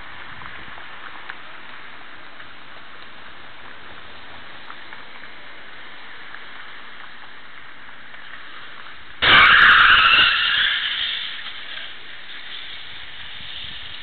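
Street traffic heard through a security camera microphone as a steady hiss. About nine seconds in comes a sudden loud, high-pitched noise that fades away over about two seconds.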